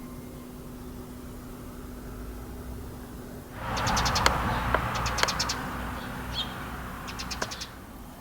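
Small birds chirping in quick runs of sharp high notes. From about halfway through, a broad rushing noise swells up and slowly fades under them.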